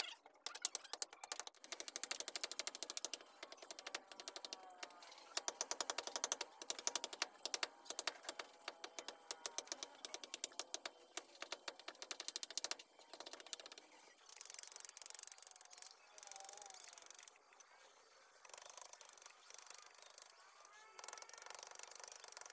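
Rapid, light chops of a small hatchet blade into a wooden machete handle, several strikes a second, knocking chips off to rough out its shape. About 14 s in, the chopping gives way to quieter, more scattered cuts.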